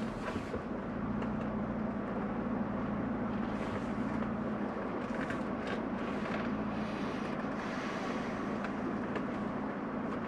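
Toyota Tacoma pickup's engine running steadily at low speed as the truck creeps over rough ground, heard from inside the cab, with a few faint light clicks and crunches.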